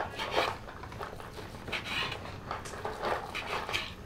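Kitchen knife cutting cooked goat meat on a wooden cutting board: irregular knocks of the blade against the board, a few each second.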